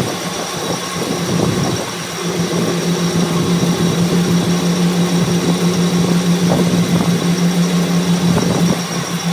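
A workshop machine's motor running steadily, a constant hum with a high whine over it and some irregular scraping noise.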